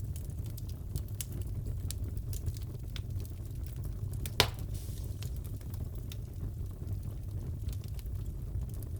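Wood fire crackling in a fireplace: a steady low rumble with scattered small crackles and one loud pop about halfway through.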